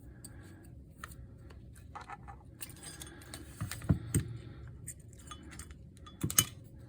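Small hard parts and tools being handled on a repair bench: scattered light clicks, clinks and scrapes, with sharper knocks about four seconds in and twice near the end.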